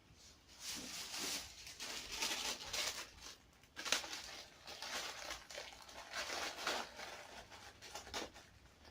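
Plastic ramen noodle packets crinkling and rustling as they are handled and pushed into a jacket pocket, in uneven spurts with a sharp click about four seconds in.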